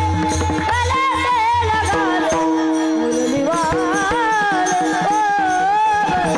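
Devotional kirtan song to Krishna: a solo voice sings a melody with wavering ornaments over a steady held drone. A low drum beat underneath drops out about a second in.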